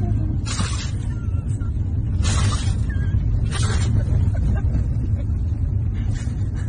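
Excited huskies in a moving car's cabin make three short breathy huffs, a fainter one near the end, and a couple of faint whines, over the steady low rumble of the car on the road.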